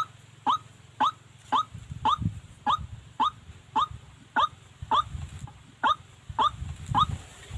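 White-breasted waterhen calling: a monotonous series of short rising 'kwak' notes, about two a second, that stops near the end. A low rumble of handling or rustling runs beneath from about two seconds in.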